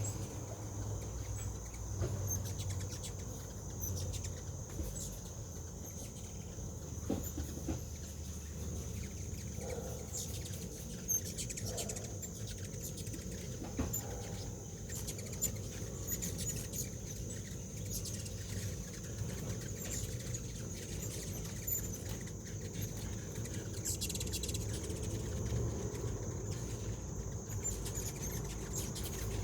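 Insects singing in a steady high-pitched drone over a low rumble, with scattered faint ticks and short chirps.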